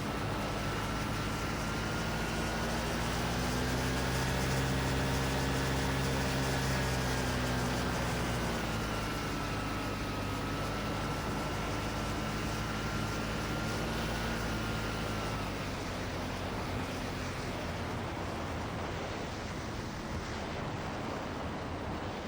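Quicksilver MXL II ultralight's engine and propeller running over a rush of wind, the engine note rising in pitch and then falling back. About two-thirds of the way through the engine note drops away, leaving only the steady rush of wind.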